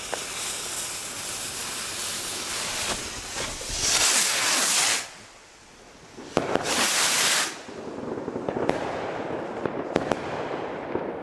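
Nico Starburst Symphony assortment rockets: a steady hiss of burning fuses, then two loud rushing hisses as rockets take off about four and six seconds in, followed by scattered pops and crackles as they burst overhead.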